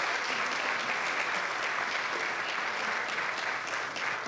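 A large audience clapping steadily, easing off slightly near the end.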